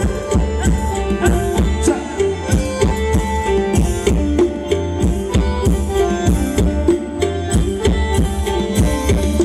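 Live Thai ramwong dance-band music: hand drums beating a quick, steady rhythm under sustained melody notes, with no singing.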